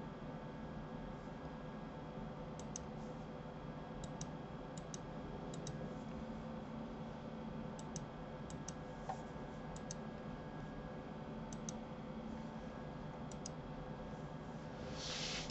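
Faint computer mouse clicks, scattered and mostly in quick pairs as a button is pressed and released, over a steady low hum. A short hiss comes just before the end.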